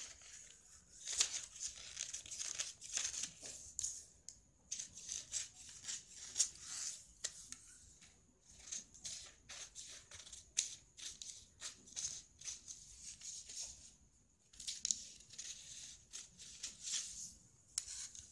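Scissors cutting through folded newspaper: a run of short, crisp snips with the paper rustling and crinkling, pausing briefly now and then between cuts.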